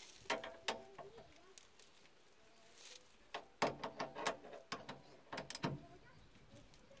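Hand tools clinking and knocking on metal under a van's front suspension, in three short clusters of sharp clicks, some with a brief metallic ring.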